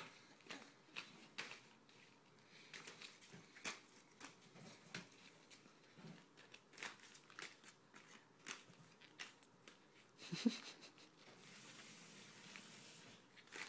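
Newspaper and glossy magazine paper being crumpled and torn by a baby's hands: faint, irregular rustles and crinkles. A short voice-like sound about ten seconds in is the loudest moment.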